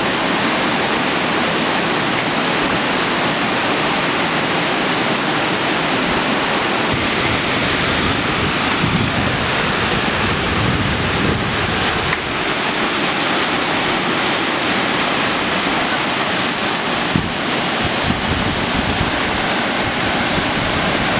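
Waterfall rushing steadily, a constant loud wash of falling water with no break.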